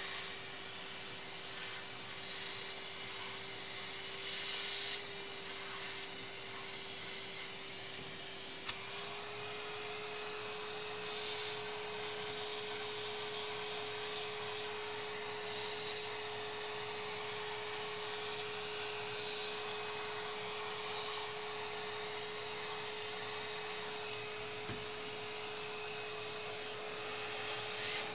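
Vacuum cleaner with a short nozzle running, a steady motor hum over a rushing hiss of suction, the hum stepping up slightly in pitch about nine seconds in. Short scraping rubs come and go as the nozzle works over the dusty inside of a computer case.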